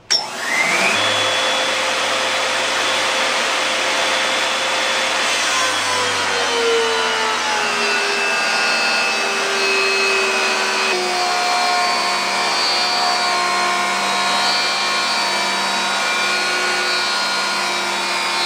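Makita 2020 8-inch jointer with a Byrd Shelix helical cutter head switched on, spinning up with a rising whine, then planing a knotty hard white maple board at a 20-thousandths cut. About six seconds in the pitch drops as the cut loads the motor, and the cutting then runs on steadily.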